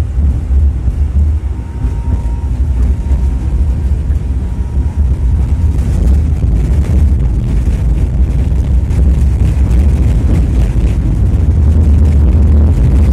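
Tatra T3SUCS tram running along the track, heard from inside the passenger car: a steady low rumble that grows a little louder about halfway through.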